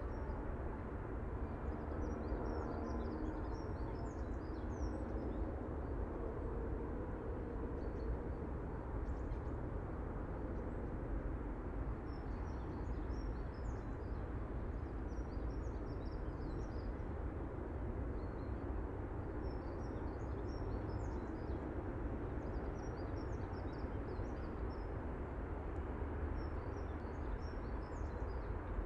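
Outdoor ambience: small birds chirping on and off over a steady low rumble.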